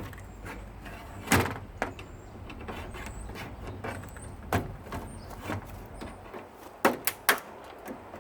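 Irregular knocks and clicks of washing-machine parts being handled and taken apart, with a loud knock about a second and a half in and a quick cluster of three near the end.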